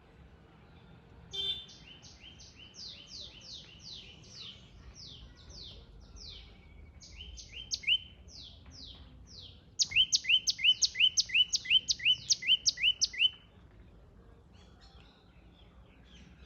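Birdsong: a bird sings rapid series of short, downward-slurred whistled notes, about four a second. A fainter run goes on for several seconds, then a much louder, closer run of about three seconds begins about ten seconds in.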